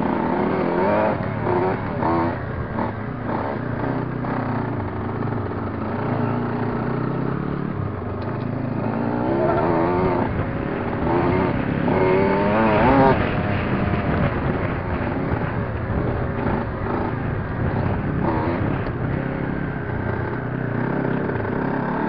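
Enduro motorcycle engine running under way, its pitch rising and falling with the throttle, loudest about thirteen seconds in.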